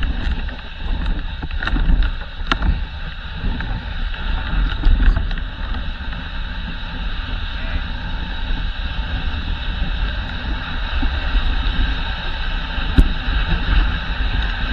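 Dog sled gliding over a packed snow trail: a steady hiss and scrape of the runners with a low rumble of wind on the microphone, jolted by a few sharp knocks in the first seconds and one more near the end.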